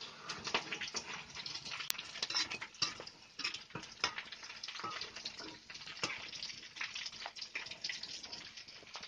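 Hot cooking oil sizzling and crackling from snails being deep-fried, a dense irregular crackle with no steady tone.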